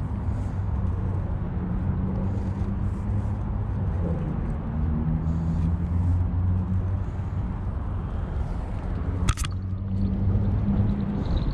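An engine running steadily nearby, a low hum whose pitch drifts slightly. A single sharp click comes about nine seconds in.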